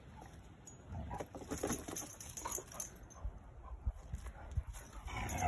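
Two dogs sniffing and nosing around plastic bags of potting mix and moving over dry grass: faint scattered rustling, snuffling and small clinks of collar hardware, a little louder near the end.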